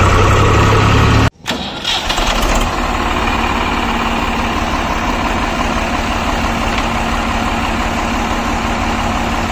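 Swaraj 735 tractor's three-cylinder diesel engine running while driving, then a sudden break about a second in, after which the engine starts up unevenly and settles into a steady idle.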